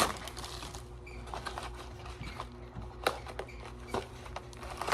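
Scattered light clicks and taps of a package being handled and opened, with a sharper click about three seconds in and another near the end, over a faint steady hum.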